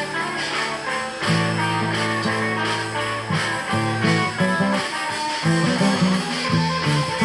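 Live blues band playing an instrumental passage between vocal lines, with guitar over a walking bass and a steady drum beat.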